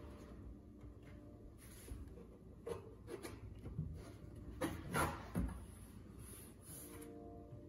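Hands rubbing and pressing on the top panel of a wooden cat litter box enclosure, with a few soft knocks of the panels in the middle. Faint throughout.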